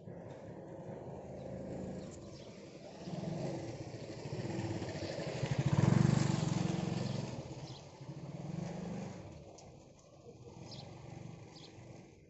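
A motor vehicle's engine passing close by: it builds from about three seconds in, is loudest about six seconds in, then fades away.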